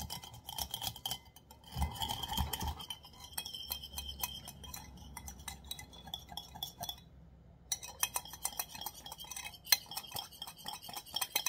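Wire balloon whisk beating a thin sauce in a glass bowl: fast, continuous clinking and rattling of the wires against the glass, with a brief pause about seven seconds in.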